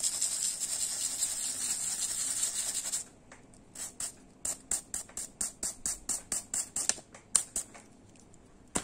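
A brush wet with thinner scrubbing a circuit board: about three seconds of fast continuous scratchy scrubbing, then separate short strokes at about two to three a second that stop a second before the end. It is cleaning solder-flux residue off the board after soldering.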